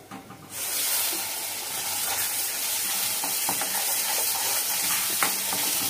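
Wet ground masala paste (onion, tomato, coconut) dropped into hot spiced oil in an iron kadhai, bursting into a loud, steady sizzle about half a second in, with a steel ladle stirring through it.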